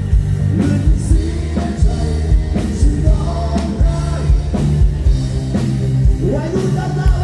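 Live rock band playing through a PA system: a male lead singer sings over drum kit, bass and keyboard, with a heavy bass line and regular drum hits.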